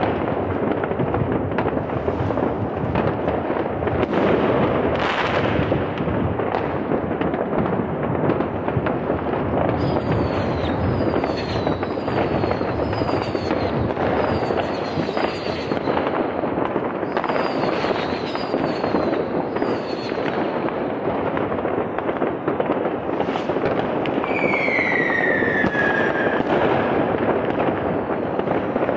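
Dense, continuous crackling and banging of many consumer rockets and firecrackers going off at once. From about ten seconds in, short falling whistles repeat every second or so, and toward the end one longer, louder whistle falls in pitch.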